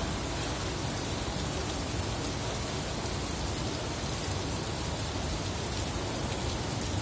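Heavy rain pouring down steadily, a dense even hiss of drops hitting the ground and surfaces.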